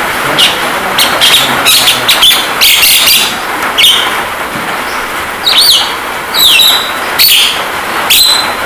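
Javan myna calling: a string of sharp, harsh chirps, then in the second half several rising-and-falling whistles. The calls sit over a steady hiss of rain sound played as song-training therapy.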